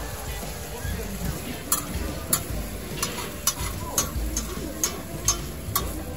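Metal spatulas clacking and scraping against a flat-top griddle about twice a second over the sizzle of frying egg, ham and bread. The clacks start about two seconds in.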